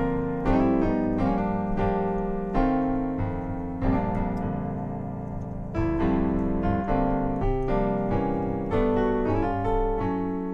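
Yamaha Montage M playing a stereo sampled piano patch (Piano 1 XL from a gospel sound pack): chords struck roughly every half second and left to ring, with one chord held for about two seconds in the middle.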